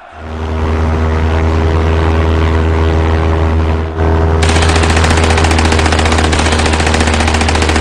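Biplane engine sound effect, a steady drone. About halfway through, rapid machine-gun fire starts over it and continues nearly to the end.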